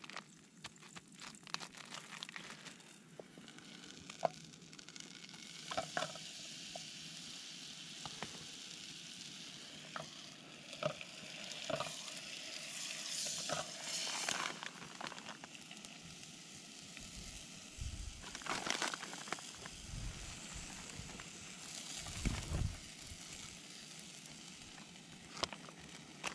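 Butter sizzling and frying in a pan: a steady hiss that swells in patches, with scattered sharp clicks and knocks.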